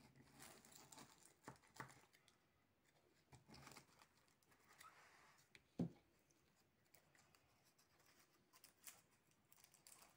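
Near silence with faint, scattered rustles and clicks of handling, and one soft thump about six seconds in.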